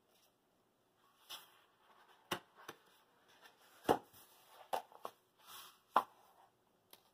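Paperback coloring book being opened and its pages turned and pressed flat by hand: brief paper rustling and sliding, broken by about six sharp taps as the cover and pages are laid down and smoothed.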